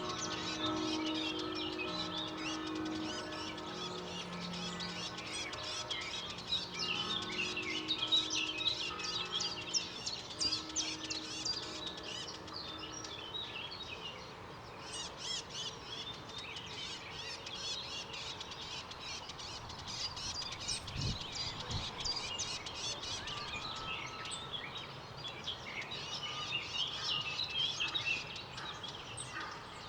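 Distant church bells ringing, their low hum fading out about halfway through, under dense chirping birdsong that carries on throughout, over a faint city background.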